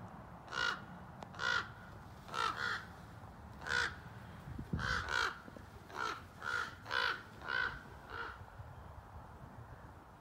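Crows cawing: about a dozen harsh caws, some single and some in quick pairs, stopping a couple of seconds before the end.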